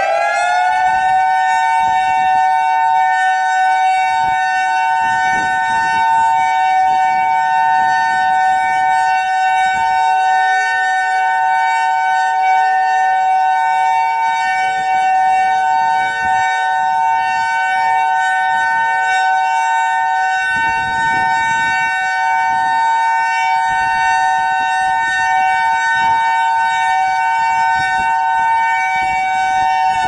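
Federal Signal EOWS 115 electronic outdoor warning siren sounding its steady alert tone: a loud, held two-note chord that starts falling in pitch only at the very end.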